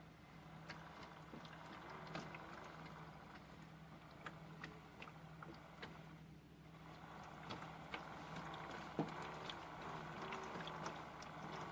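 Modified Miele toy washing machine running: a steady motor hum under water sloshing in the drum, with scattered small clicks. The sloshing stops briefly about halfway through, then starts again.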